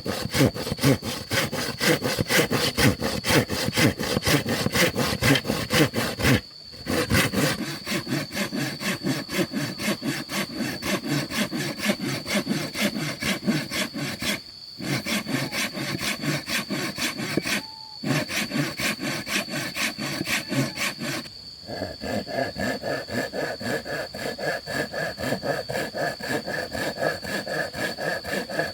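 Hand saw cutting through wood in steady, rapid back-and-forth strokes, stopping briefly four times to reposition.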